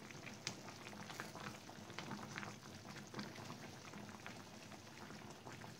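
Sinigang soup simmering in a stainless steel pan: a steady soft bubbling with many small irregular pops.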